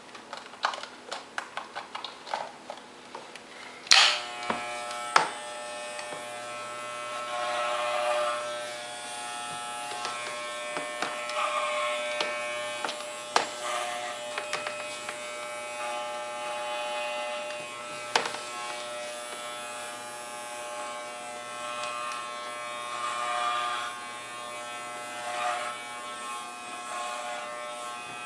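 Corded Wahl Pet Clipper (Basic Series 9160-210) switched on with a click about four seconds in, then buzzing steadily, its sound swelling and easing now and then as the blades work through the dog's fur. Before it starts, a scatter of small clicks and taps.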